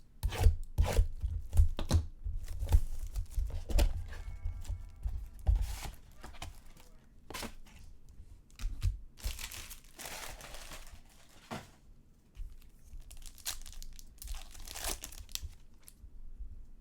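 A sealed box of trading cards being opened and its wrapping torn: sharp taps and knocks of handling in the first few seconds, then crinkling, tearing plastic and foil wrapper with the loudest tearing about ten seconds in and again near the end.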